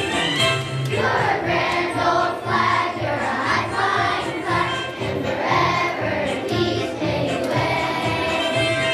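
A choir singing with instrumental accompaniment over a steady bass line; the voices come in about a second in, after a short instrumental passage.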